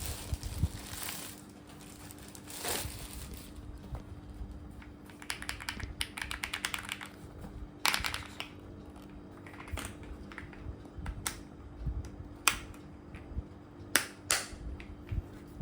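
Mechanical keyboard keys clacking: a quick run of keystrokes about five to seven seconds in, then single key presses every second or so.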